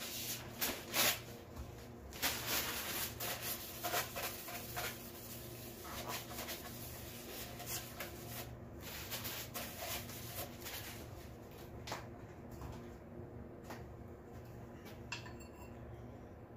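Paper towel tearing, crumpling and rubbing as it is wiped around inside the cast-iron cylinder bores of a small-block Chevy engine block, with scattered light knocks of handled parts. The busiest handling noise comes in the first few seconds, over a steady low hum.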